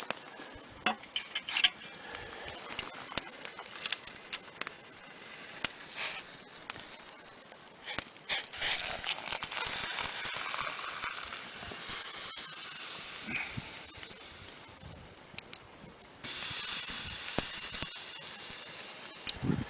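Scattered clicks and handling noises, then a steady hiss that starts suddenly about 16 seconds in.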